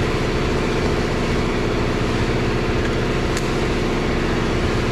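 A steady mechanical drone with a constant low hum, like a motor or engine running, and one faint click about three and a half seconds in.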